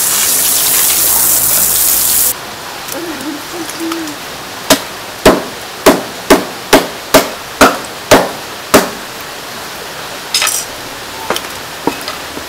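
Water from a hose spraying onto fish fillets on a wooden chopping block, cut off suddenly about two seconds in. Then a cleaver chops a fish fillet into chunks on the block: nine sharp strikes about two a second, followed by a few lighter knocks.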